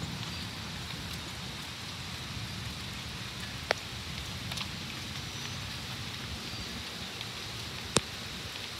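Steady rain falling during a thunderstorm, an even hiss, with two sharp ticks about four seconds apart, one near the middle and one near the end.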